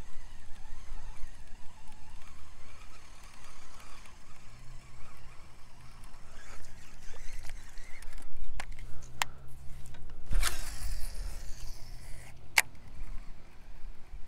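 Wind rumbling on the microphone over a breezy lake. Several sharp clicks come in the second half, and a louder knock about ten seconds in.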